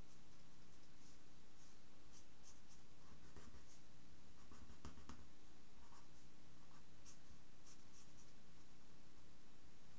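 Felt-tip pen nib scratching across paper in many short, separate strokes at irregular intervals as lines are inked into a drawing.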